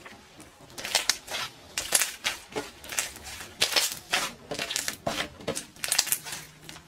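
Homemade slime mixed with foam blocks being squeezed and played with by hand, giving irregular crackling bubble pops.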